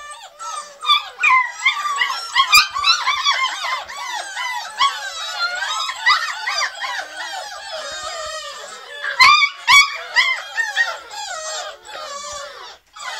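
A litter of beagle puppies whining and yelping, many high cries overlapping and sliding up and down in pitch, with a few sharper, louder yelps about two and a half and nine seconds in.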